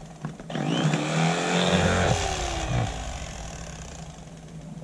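A motor running. About half a second in, its sound swells, rising in pitch and loudness, then falls and fades away over the next few seconds.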